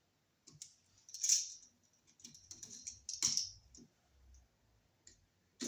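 Small clicks, rattles and brief scrapes of hand work on a wall receptacle as the white neutral wire is looped under its silver terminal screw and tightened with a screwdriver. The loudest scrapes come about a second in and about three seconds in, with a sharp click near the end.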